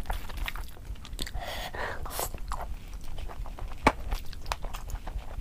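Close-up wet eating sounds: a person chewing and smacking on a mouthful of rice and chicken curry eaten by hand, with many short sticky clicks and squelches.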